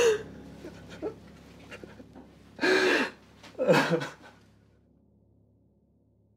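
A person's breathy gasps: a short one at the start, then two longer, louder ones about three and four seconds in.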